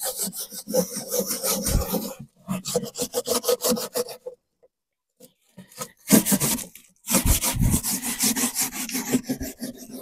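Lemongrass leaves scrubbed hard against the inside of a wooden beehive box: rapid rasping back-and-forth rubbing strokes. The scrubbing stops for about a second and a half midway, then starts again.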